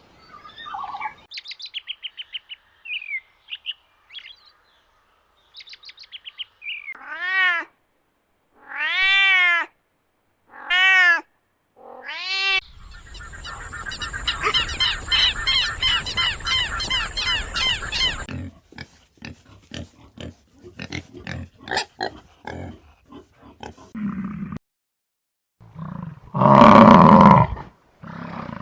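A series of animal calls from several different animals: short chirps, then three separate rising-and-falling calls, a long buzzy call with a steady high whistle, a run of clicks, and a loud call near the end.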